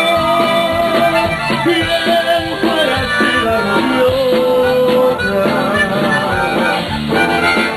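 Tejano band music: a held, reedy melody line with a falling glide early on, over a steady beat.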